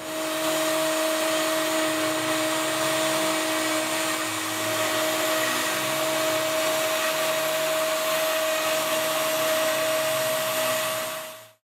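Router spindle of a CNC-STEP High-Z S-1400/T-105 CNC router running at a steady high whine while milling across an end grain wooden board. It cuts off suddenly near the end.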